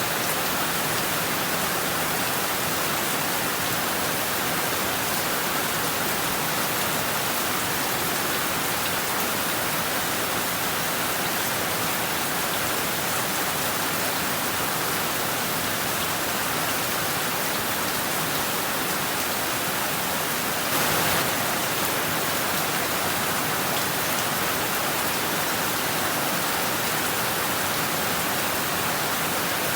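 Heavy rain falling steadily, a dense even hiss with no pauses, swelling briefly a little louder about two-thirds of the way through.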